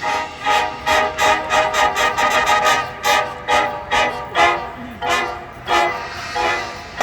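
High school marching band playing its field show: a passage of short, separate pitched notes, about two to three a second, slowing a little near the end.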